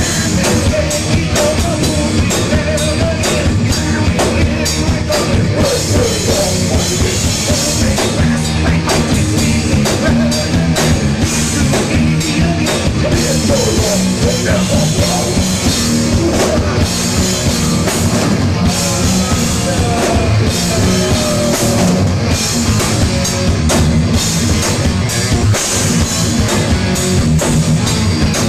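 Live heavy metal band playing: electric guitar, bass and a pounding drum kit, with a man singing lead vocals.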